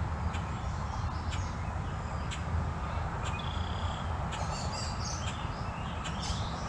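Birds chirping now and then over a steady low outdoor rumble, with a few faint clicks.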